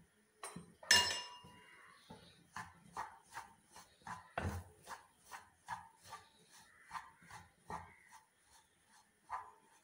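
Wooden spatula stirring semolina as it dry-roasts in a pan, making a regular run of short scraping strokes, about two to three a second. About a second in there is a sharp metallic clang with a ringing tone.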